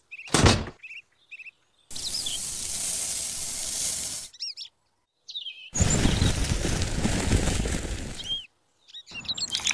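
Dry sand, then cement powder, poured from small containers into the soda-can drum of a miniature cement mixer: two steady pours of about two and a half seconds each, with a knock about half a second in as the model mixer is set down. Birds chirp in the pauses between.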